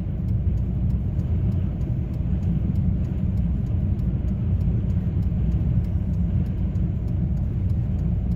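Steady low rumble inside the cabin of a stopped car with its engine running, as blizzard wind blows against the car.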